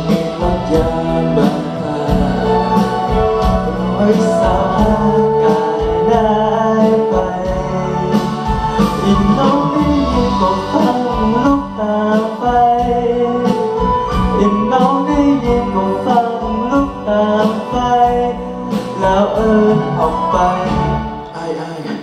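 Live band of electric guitar and keyboard with a steady beat, accompanying a man singing a song into a handheld microphone.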